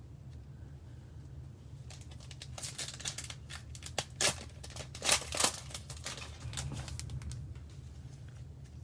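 Crinkling and tearing of a plastic trading-card pack wrapper being handled and opened, in irregular crackles that start about two seconds in and are loudest around the middle.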